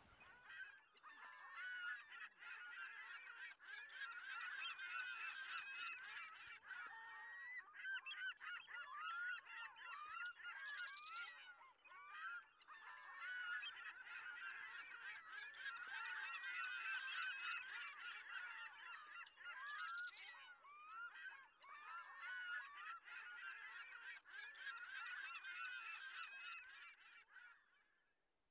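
A flock of gulls calling: many short, overlapping cries and squawks with no let-up, cutting off near the end.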